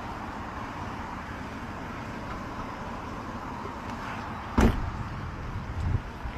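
A car door slams shut once, sharply, about four and a half seconds in, with a couple of softer thumps after it, over steady background noise of a car outdoors.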